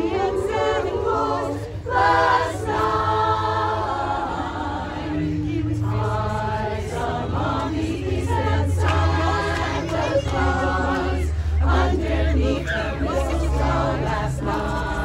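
Women's chorus singing a Christmas song in harmony, in held phrases with short breaks between them.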